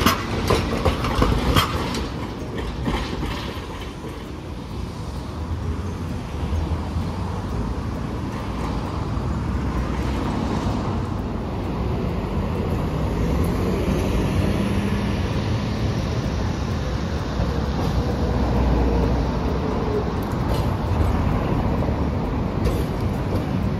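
Hiroshima streetcar 809 rolling past close by, its wheels clacking sharply over the track in the first couple of seconds. Steady street traffic follows as a city bus and cars pass, and an articulated three-section tram draws near.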